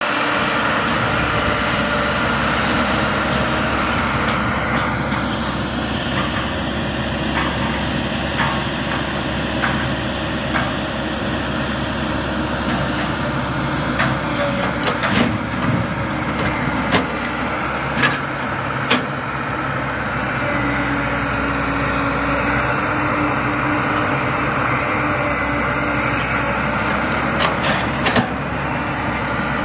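Caterpillar 312C excavator's diesel engine running steadily as it digs and loads. Several sharp knocks in the middle and one near the end, as the bucket dumps soil and clods into the steel bed of the dump truck.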